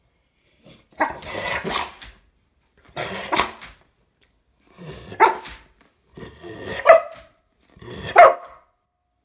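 A Labrador-type dog barks five times, about every one and a half seconds. Each bark comes out of a short grumbling growl and peaks in a sharp, loud woof.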